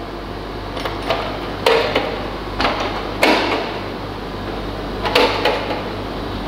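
Metal clamp latches on the drum of a Wieland FS-216 industrial wet-and-dry vacuum being unclipped and its lid head lifted off: about five sharp clacks and knocks spread over several seconds. A steady low machine hum runs underneath.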